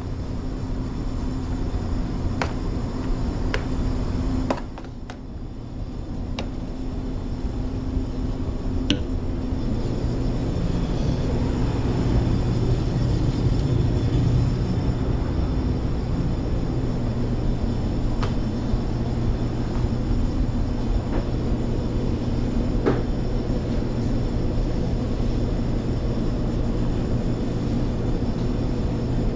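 Steady low hum and rumble of commercial kitchen equipment and ventilation, with a few sharp clinks of metal utensils and pans scattered through.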